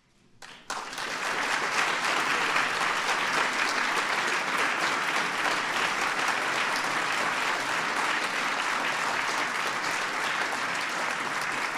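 Audience applauding: the clapping starts about a second in and then goes on steadily.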